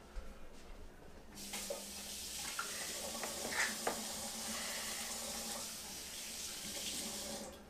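Kitchen faucet running into the sink as hands are washed under it. The water comes on about a second and a half in and shuts off just before the end, with a few small clicks and knocks in the middle.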